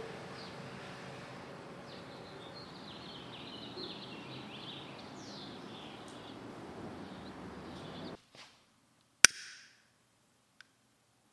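Steady outdoor ambience with small birds chirping, which cuts off about eight seconds in. Then comes a single sharp, loud click of a long-nosed utility lighter sparking alight, with a brief hiss of the flame catching, and a faint click about a second later.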